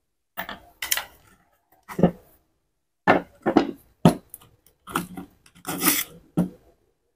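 Metal and plastic parts of a Bosch angle grinder clicking, knocking and scraping as it is taken apart by hand: the gear head comes off and the armature is slid out of the motor housing. About nine sharp knocks and clicks come in irregular groups.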